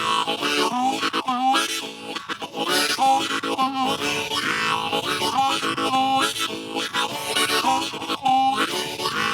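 Harmonica playing rhythmic, repeating chords: a live solo harmonica performance of a folk song.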